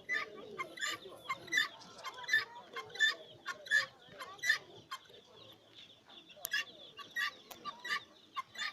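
Guineafowl calling: a run of short, harsh, repeated calls, roughly one or two a second.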